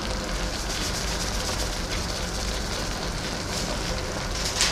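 Chop suey vegetables and chicken liver simmering in a thickened sauce in a pan: a steady sizzling hiss, with a brief crisp rustle near the end.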